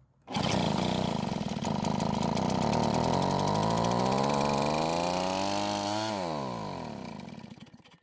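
RedMax backpack blower's two-stroke engine firing up and running on its own, its pitch climbing steadily as it revs up for several seconds, then shut off about six seconds in and winding down to a stop. This is the first start after fitting a replacement aftermarket flywheel, which the owner takes to have been the cause of the no-start.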